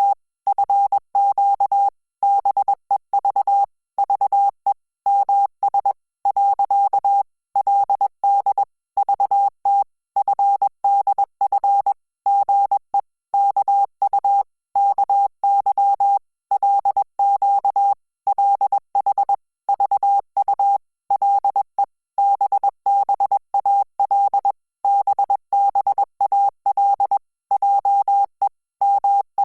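Morse code sent as a single steady beep keyed on and off in short dots and longer dashes, with brief gaps between letters and words. It is Korean (Hangul) Morse code at 20 words per minute.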